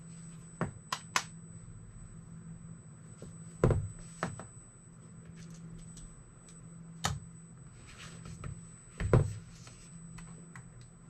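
Scattered clicks and light knocks, about seven in all, from hands handling the FPV gear and pressing its buttons, over a faint steady hum.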